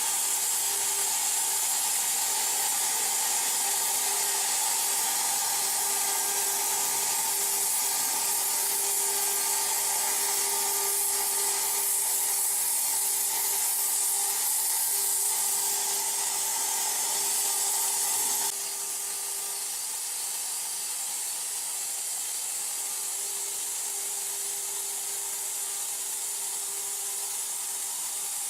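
CNC plasma torch cutting steel: a steady loud hiss with a faint steady tone under it. About two-thirds of the way through it suddenly turns quieter and less bright, and then carries on steadily.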